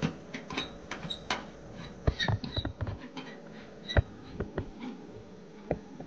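Irregular light clicks and taps from the stainless-steel door and latch of a Dickinson Newport diesel heater, with its freshly lit burner inside, over a faint steady hum.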